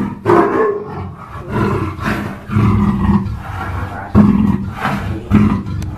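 Big cat roaring in a run of short, loud calls repeated every second or so.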